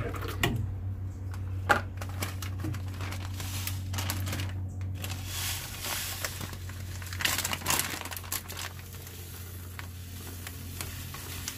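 Plastic bag of sugar crinkling and rustling in the hand as it is poured into a plastic jug of juice, with scattered sharp clicks, busiest about six to eight seconds in, over a steady low hum.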